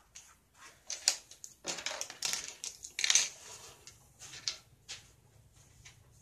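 Hard plastic toy train track pieces and connectors clicking and clattering against one another and a wooden tabletop as they are handled and sorted. The knocks come irregularly, and the loudest is about three seconds in.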